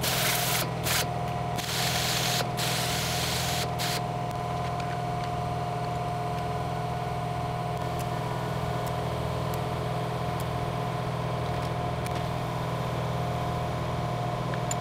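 Steady low electrical hum with a higher buzzing tone over it, and several short bursts of hiss that start and stop abruptly in the first four seconds.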